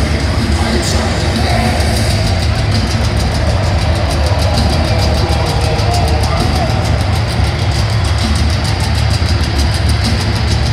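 Live heavy metal band at stadium volume: distorted electric guitar over heavy drums, with a fast, steady cymbal beat coming in about two seconds in. The bass rumbles heavily through a phone's microphone.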